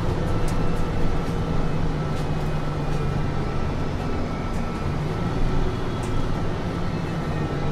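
Mercedes-Benz Citaro C2 city bus's diesel engine running steadily, with a few faint ticks or rattles over it.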